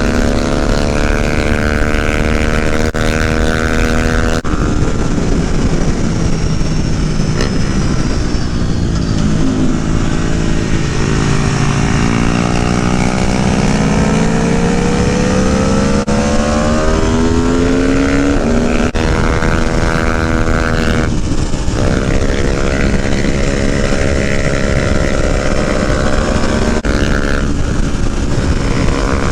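Aprilia Tuono V4 1100's V4 engine at track speed: revs fall for a few seconds, climb hard again, then run up through the gears with several sharp drops in pitch at the upshifts.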